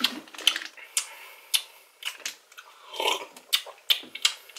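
Mouth sounds of someone tasting a sports drink: a quick run of lip smacks and tongue clicks, with a fuller smack or gulp about three seconds in.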